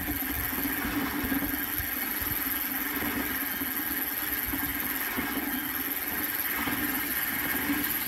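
A steady mechanical drone, like a small engine running, holding an even level throughout.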